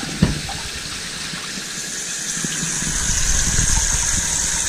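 Handheld shower head spraying water into a bathtub: a steady hiss of running water, with a brief knock just after the start.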